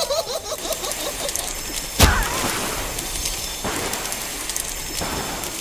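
Edited-in transition sound effect: a steady noisy rush with a sharp booming hit about two seconds in and two lighter hits later.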